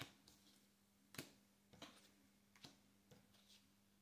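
Tarot cards being dealt face down onto a wooden table: four or five faint taps and flicks, roughly one every second, over a faint steady hum.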